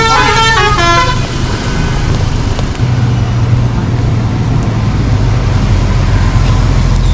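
Bus's musical horn playing a tune of stepped notes, which ends about a second in. After that, the bus's engine and road noise run steadily.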